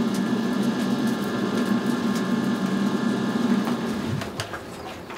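Electric blower forcing air into a traditional Thai kiln furnace, a steady motor hum that fades away about four seconds in. A couple of faint knocks follow near the end.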